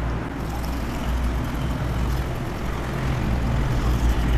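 Manual toothbrush scrubbing teeth: a steady rough brushing noise over a low background rumble.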